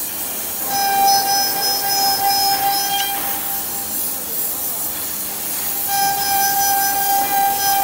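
CNC router spindle cutting a pattern into a wooden board, with a steady hiss of compressed air from a blow gun clearing the chips. A high whistling tone comes in about a second in for two seconds, and again near the end.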